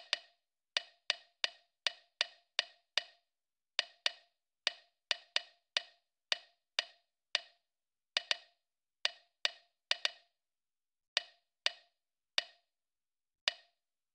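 Smartphone on-screen keyboard key-tap clicks as a text message is typed, about thirty short crisp ticks at an uneven typing pace, roughly two a second, with brief pauses between bursts of letters.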